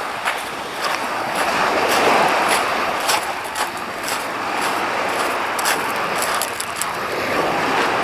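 Small waves washing onto a sand-and-shingle shore in swells, with crunching footsteps on pebbles at a walking pace.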